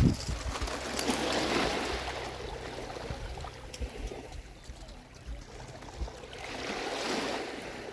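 Sea waves washing in: two swells of surf rising and fading, one about a second in and another near the end, with wind buffeting the microphone underneath.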